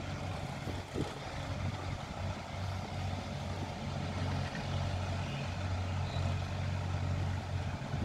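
Tractor diesel engine running steadily under load as it hauls a trolley full of soil, a low, even hum.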